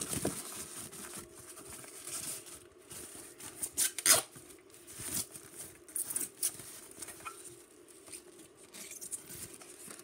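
Protective wrap rustling and crinkling as it is pulled off a hard drive docking station, with scattered light taps and clicks, the sharpest crackle about four seconds in.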